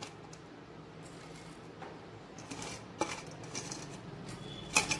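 Crisp fried onions handled and dropped into a stainless-steel mixer-grinder jar from a steel bowl, with scattered light clinks of steel on steel and two sharper clinks close together near the end.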